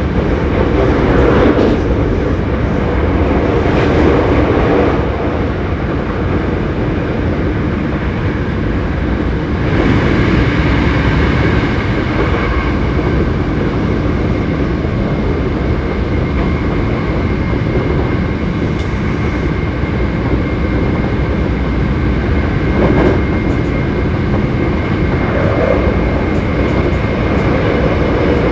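Running sound of a Hankyu 7300-series electric train car under way: a steady rumble of wheels and motors on the rails, with a steady high whine that grows stronger about ten seconds in. This car is known for an unusual running noise.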